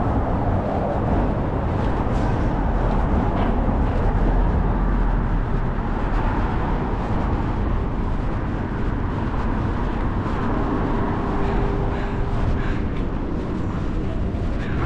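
City street traffic: passing vehicles heard as a steady wash of noise with a low rumble underneath.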